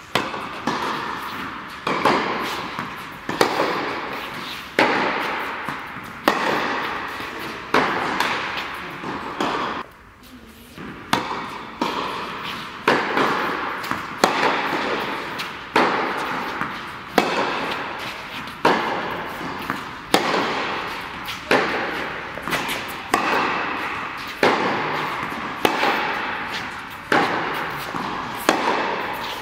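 Tennis racket striking the ball over and over, a sharp pop about once a second, each one echoing in an indoor tennis hall.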